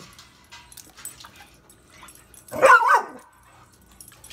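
A dog gives one short, wavering bark-like call about two and a half seconds in, with faint small clicks and taps around it.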